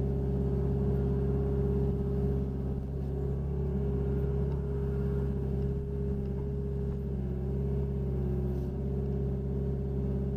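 Hitachi Zaxis 60 USB mini excavator's diesel engine running at a steady working speed, heard from inside the cab while the boom and bucket dig.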